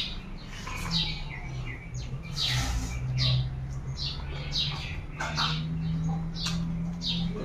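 Small birds chirping, short high falling chirps repeating irregularly a few times a second, over close-up chewing and mouth sounds of rice eaten by hand, with a steady low hum underneath.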